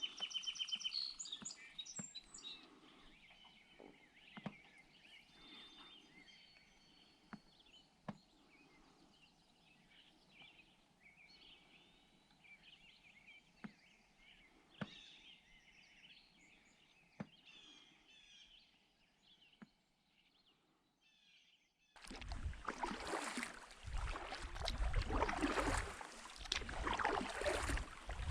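Birds singing and chirping, with soft sharp knocks every second or two of a canoe paddle on the hull. About twenty-two seconds in, the sound cuts abruptly to a loud, steady rushing noise.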